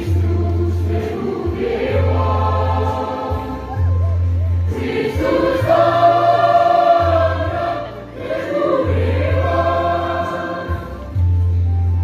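A choir singing in harmony, holding a chord for a second or two midway, over a deep low tone that comes and goes.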